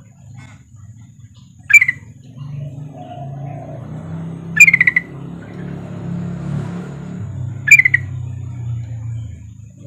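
Female yellow-vented bulbul (trucukan) giving short, sharp calls three times, about three seconds apart, over a low rumble that swells through the middle.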